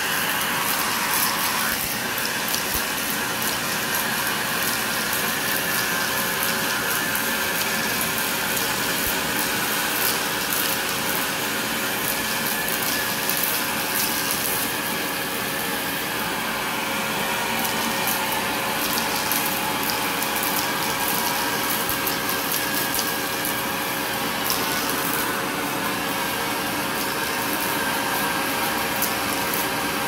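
Vacuum cleaner running steadily through its hose and curved handle, with a steady motor whine and a scatter of quick clicks and rattles as small plastic beads are sucked up the hose.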